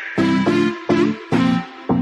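Electronic dance music with synth chords pulsing about three times a second.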